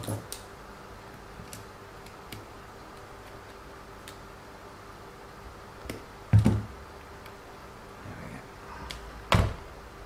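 Small clicks and taps of hands fitting a tiny hinge pin into the plastic swing arm of a 1/14-scale RC car, with two louder knocks about six and nine seconds in.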